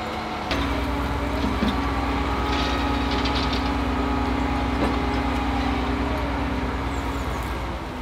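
Mack NR logging truck's engine running, stepping up to a higher steady speed about half a second in and dropping back near the end.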